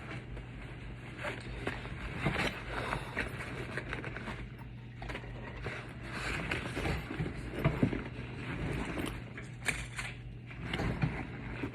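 Fidget toys being handled and pulled out of a backpack: irregular rustling with scattered light clicks and knocks.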